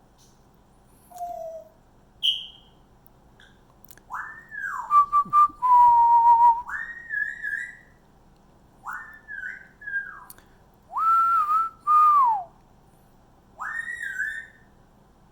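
Dog whining: a series of high, clear whines that rise, hold and fall in pitch, coming in bunches from about four seconds in, with short breathy snuffles among them.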